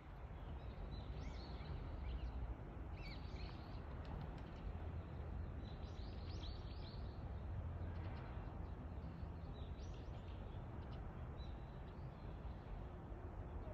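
Small birds chirping in short flurries, four or five times, over a steady low rumble of outdoor background noise.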